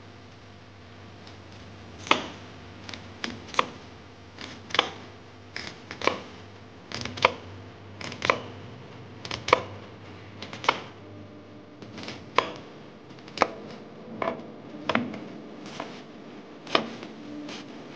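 Kitchen knife slicing an onion on a bamboo cutting board: irregular sharp knocks of the blade on the wood, about one a second, starting about two seconds in.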